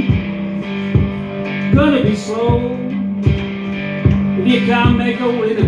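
Electric cigar box guitar playing a blues instrumental break: notes that bend and slide up and down over a steady low droning note, with a low thump on each beat.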